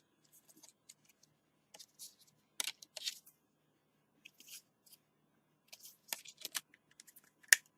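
Scattered plastic clicks and snaps as a Samsung Galaxy S5's back cover is pressed on, its edge clips popping into place, with the sharpest snap near the end.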